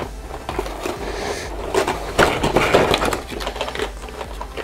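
Clear plastic miniature trays rattling and crinkling as they are lifted out of a cardboard box, with quick clicks of plastic figures knocking together. The crackling is thickest around two to three seconds in.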